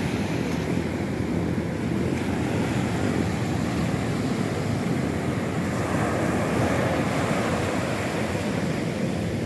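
Sea surf washing on the shore in a steady, continuous wash, with wind on the microphone.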